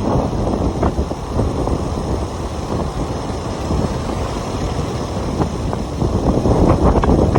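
Strong storm wind from a hurricane buffeting the microphone: a steady, heavy low rumble that swells in gusts, growing a little louder near the end.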